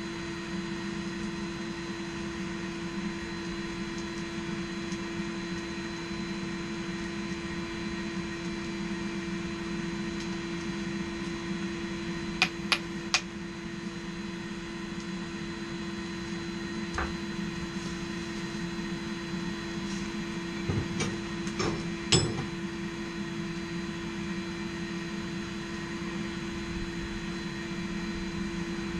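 Steady electric hum of a forge's air blower running, with three sharp metallic clinks about halfway through and a few smaller knocks several seconds later.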